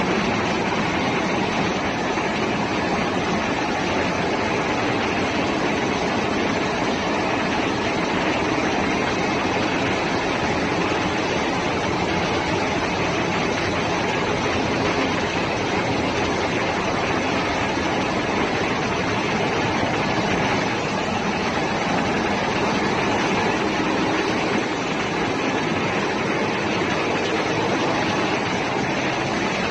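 Steady machinery noise of a ship's engine room in operation: a loud, even din with no breaks or separate knocks.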